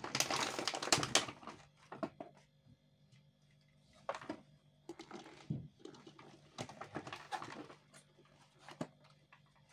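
Hands working eggs and salt water in a plastic basin and on a plastic egg tray: a burst of handling and water noise in the first second and a half, then scattered light knocks and rustles.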